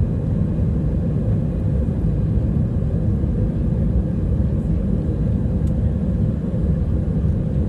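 Jet airliner heard from inside the passenger cabin while taxiing: a steady low rumble of engines and cabin noise.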